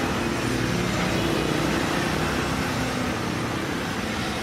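Typical GC0303CX walking-foot industrial sewing machine running steadily, a constant mechanical hum.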